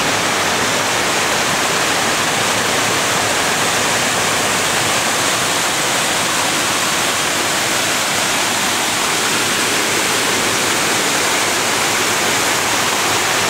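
Waterfall rushing steadily over rock.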